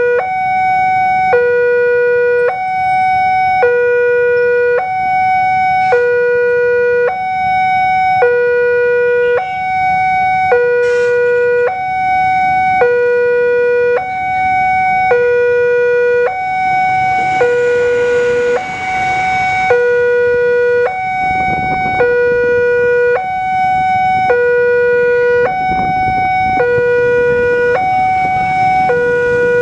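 Railway level-crossing alarm sounding its electronic two-tone warning, alternating between a low and a higher tone each held about a second, which signals that a train is approaching and the barrier is down. For a few seconds around the middle, the rumble of the passing rail car rises under the alarm.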